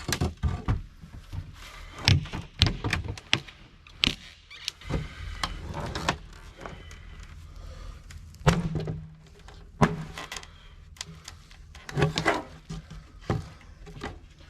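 Irregular knocks, clicks and clatters as mobile home skirting pieces are pried and pulled loose from their tough-to-remove nails. The loudest knock comes about eight and a half seconds in.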